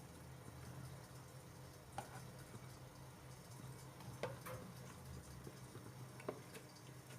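A spoon tapping and scraping softly against a bowl and small aluminium cake moulds while thick chocolate batter is portioned out, four light clicks over a low steady room hum.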